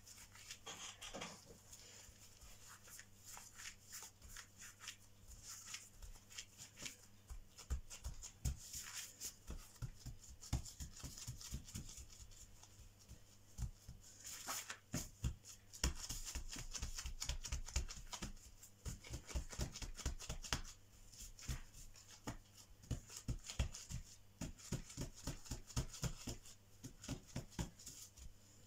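Gloved hands rolling and pressing a log of soft pastry dough on a table: soft, irregular taps and thumps with the crinkle of plastic gloves, growing busier after about seven seconds, over a low steady hum.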